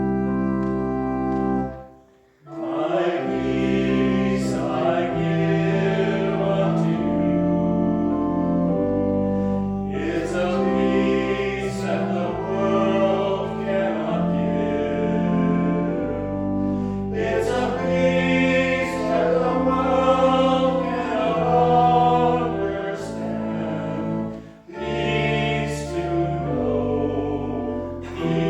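Church organ and voices singing a hymn. A brief organ chord breaks off about two seconds in, then the singing begins over held organ chords.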